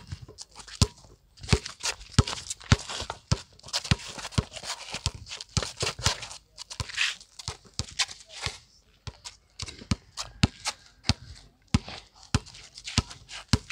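Basketball bouncing on a concrete court as it is dribbled, in an uneven run of sharp bounces about two to three a second, with sneakers scuffing between them.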